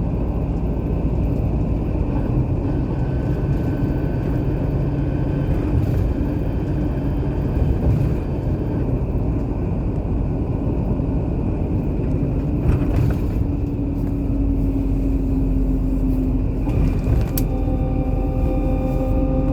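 Car on the move: steady low road and engine rumble, with a steady humming tone coming in about two-thirds of the way through and rising slightly in pitch.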